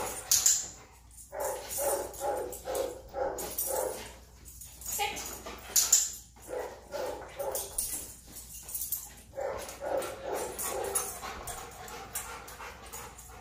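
Young Labrador retriever whining and yipping in quick runs of short calls, with a couple of louder, sharper calls about half a second and six seconds in.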